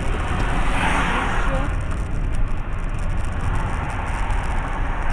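Steady road and engine noise of a car on the move, a low rumble under a hiss that swells about a second in.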